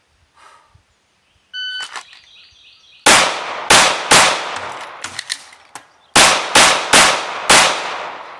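A shot timer beeps once. Then a Glock 45 9mm pistol with a KKM compensator fires seven shots, each with a ringing tail: three quick shots about half a second apart, a short pause with a few light clicks, then four more in quick succession.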